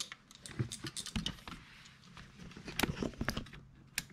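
Irregular small clicks and taps of plastic wiring clips and hand tools against a car seat's metal frame as seat-sensor wiring is pried loose.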